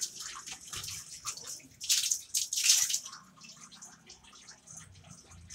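Water splashing, a run of short splashes that is loudest about two to three seconds in, as the birds' dirty water is dealt with.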